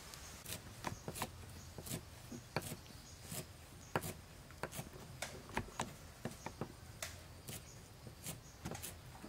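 Kitchen knife cutting limes on a thick round wooden chopping board, the blade knocking on the wood in irregular sharp taps, about one or two a second.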